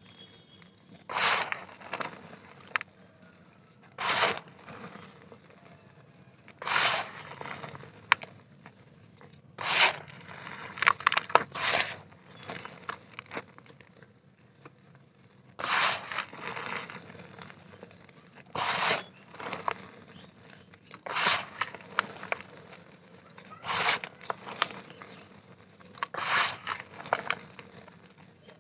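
Pressed black dirt chunks crunching and crumbling in the hand, in separate crackly bursts every one to three seconds with quiet between.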